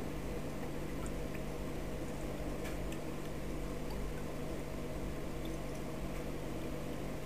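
Aquarium filter or pump running: a steady low hum with water churning and bubbling, and a few faint ticks.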